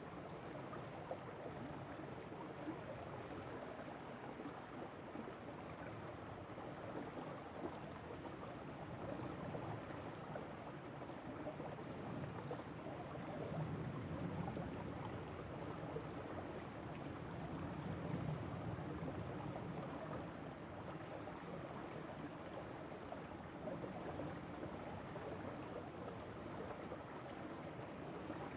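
River water running steadily, an even rush that swells slightly about halfway through.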